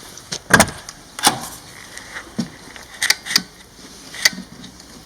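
A door being opened: five sharp clicks and knocks from its handle and latch as it is worked.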